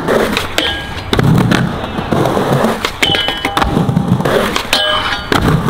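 Skateboards rolling on concrete with repeated sharp clacks and knocks of boards and trucks hitting a metal flat bar, and a couple of short metallic rings.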